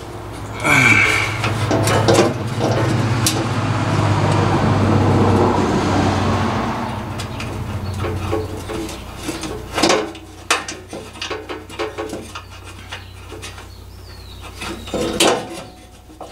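A small power tool whirs steadily for about six seconds as the 10 mm nuts holding a truck's thin sheet-metal exhaust heat shield are run off. Then come scattered clicks, knocks and rattles as the loosened heat shield is worked down by hand.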